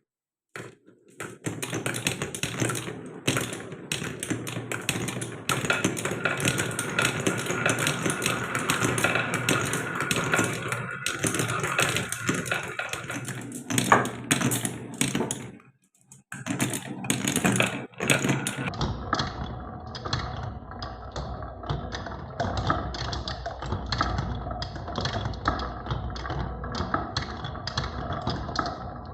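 Marbles rolling and clacking down the wooden tracks of a HABA marble run: a dense, continuous rattle of small clicks. It breaks off briefly about 16 seconds in, then resumes and sounds duller in the last third.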